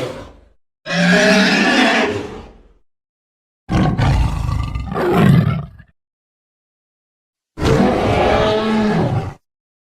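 Dinosaur roar sound effect for Sinotyrannus: three separate roars, each about two seconds long and separated by dead silence, after the fading tail of an earlier roar. The middle roar swells twice.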